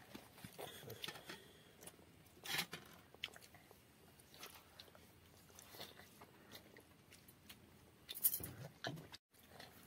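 Faint close-up sounds of a child chewing a bite of egg omelette curry and rice eaten by hand: soft wet mouth clicks, with louder ones about two and a half seconds in and again near the end.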